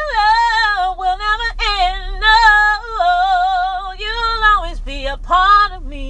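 A woman singing a cappella, holding and bending long notes with vibrato in short phrases, over a steady low hum.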